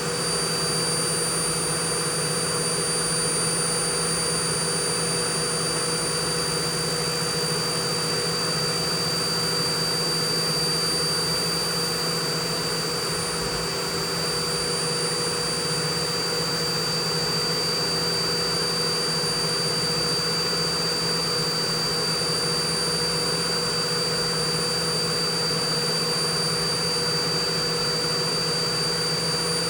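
Haas CNC mill running steadily while it cuts the profile of a mother-of-pearl inlay: a constant high spindle whine over a steady rushing hiss.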